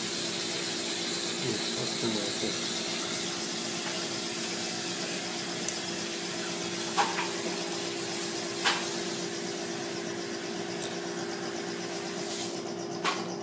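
Steady low machine hum with an even hiss, broken by three sharp metallic clicks about seven, nine and thirteen seconds in. The clicks come as a tooth is fitted into the chamber of a hand-cranked metal tooth mill.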